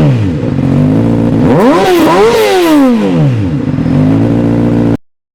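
Honda CBR600RR's 599 cc inline-four engine idling and being revved by hand with the throttle: it drops back from a blip at the start, rises and falls once in a quick rev about two seconds in, settles back to idle, then cuts off abruptly near the end.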